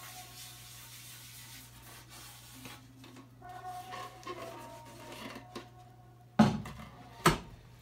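Faint rubbing and handling of a freshly shellacked wooden Persian tar, then two loud knocks about a second apart near the end as the instrument is set down on a wooden table. A steady low hum runs underneath.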